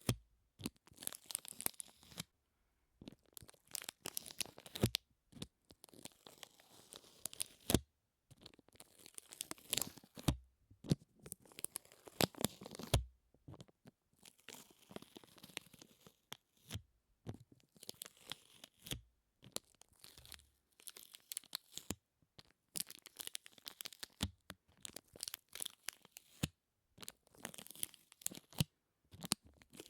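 Close-miked sticky sounds: something tacky being pulled apart again and again, each pull a crackly peeling burst lasting one to two seconds, with short silences between.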